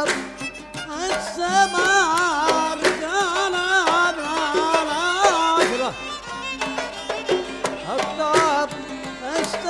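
Oud plucked in a traditional Gulf tune. A held, wavering melody line with wide vibrato rides over it from about a second and a half to six seconds in.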